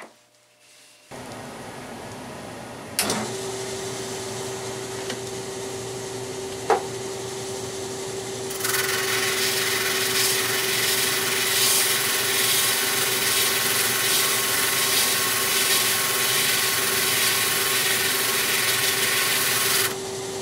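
A steady rush starts about a second in, then a drum sander's motor comes on with a click about three seconds in and runs with a steady hum. From about nine seconds in a wooden intarsia piece is held against the spinning sanding drum to shape it, adding loud sanding noise that drops away just before the end when the piece is lifted off.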